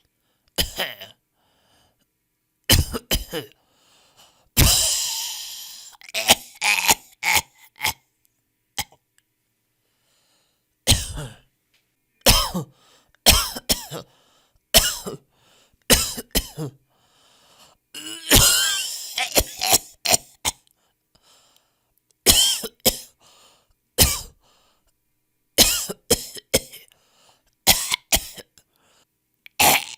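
Human coughs from different people in varied styles: more than a dozen short coughing bouts, some single and some in quick runs of two or three, with a longer, harsher fit about five seconds in and another near twenty seconds. Each bout is cut off into dead silence before the next.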